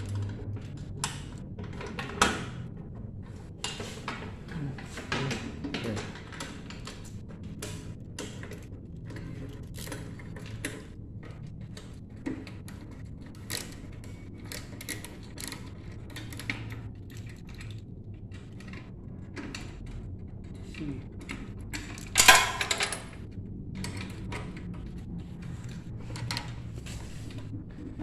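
Scattered metal clicks, taps and rattles of bolts and steel parts being handled and fitted while a bandsaw's frame is assembled by hand. A louder knock comes about two seconds in, and a louder clatter about two-thirds of the way through.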